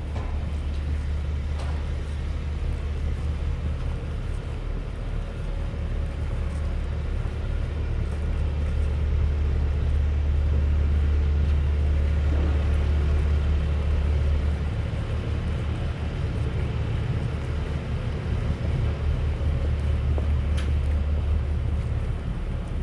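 Urban street ambience dominated by a steady low rumble of road traffic, swelling for several seconds around the middle.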